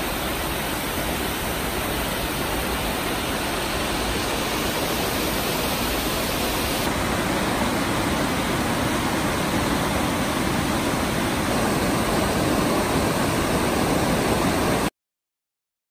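Steady rush of water pouring over an overflow weir, a dense, even noise that grows slightly louder and then cuts off abruptly near the end.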